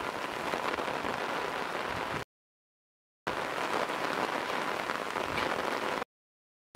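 Steady rain falling, heard in two stretches separated by about a second of dead silence, then cutting out again near the end.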